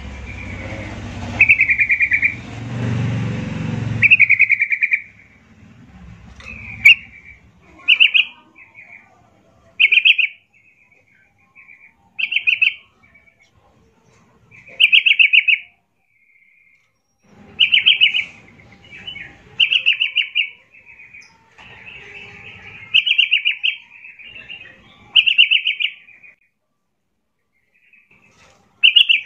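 Yellow-vented bulbul (trucuk) singing short, high-pitched phrases about every two seconds, with brief pauses between them. A low rumbling noise sits under the first four seconds.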